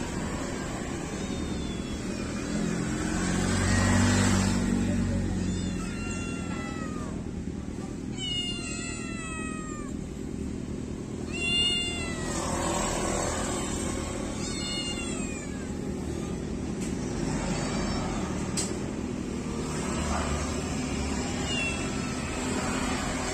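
Several kittens meowing in short, high, thin calls that fall in pitch, often overlapping, in clusters through the middle with the sharpest cry about halfway in. A low rumble swells and fades about four seconds in.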